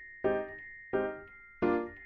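Background music: keyboard notes struck at an even pace, about three every two seconds, each fading quickly, over a steady high held tone.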